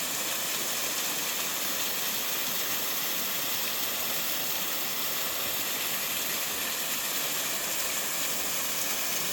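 Waterfall on a mountain stream, falling water rushing steadily as an even hiss with no change.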